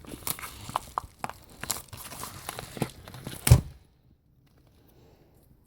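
Packaging being handled and torn open: a run of crinkling, crackling and tearing, ending in a single louder knock about three and a half seconds in, after which it goes nearly quiet.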